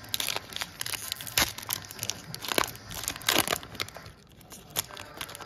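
Foil wrapper of a Panini Mosaic football card pack being torn open and crinkled by hand: an irregular run of crackles and rips, with a few louder tears in the first three seconds or so, thinning out near the end.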